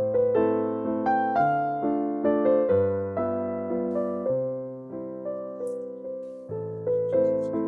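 Piano or electric piano playing a slow melody over chords and a bass line, each note struck and left to die away.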